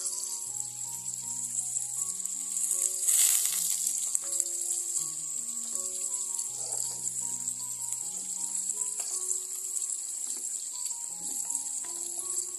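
A pot of water at a rolling boil on a gas stove, giving a steady high hiss, under soft background music: a slow melody of single notes. A short rush of noise about three seconds in is the loudest moment.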